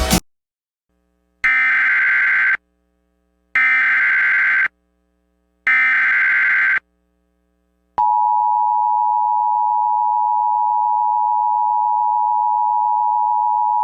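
Emergency Alert System tones: three separate digital header bursts of raspy data tones, each about a second long, then about eight seconds in the steady two-tone EAS attention signal starts and holds.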